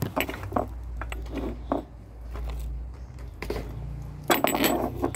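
Handling noise of a phone camera being picked up and repositioned on a counter: rubbing, taps and small clicks, with a louder clatter about four and a half seconds in.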